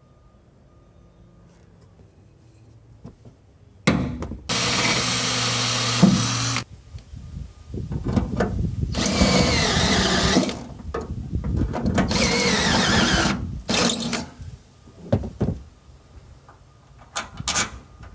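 Power drill cutting holes through the truck bed's sheet steel in several bursts, its motor running at a steady pitch under the cutting noise. The drilling starts about four seconds in and is followed by a few sharp clicks near the end.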